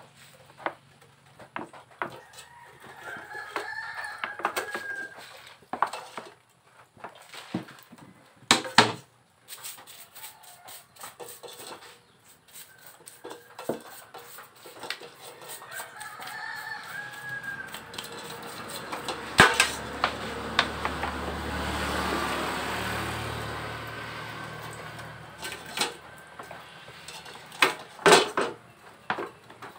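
A rooster crowing twice, about three seconds in and again around sixteen seconds, over sharp clinks and knocks of a part being handled and brushed in a metal basin of gasoline. A low rumble swells and fades in the second half.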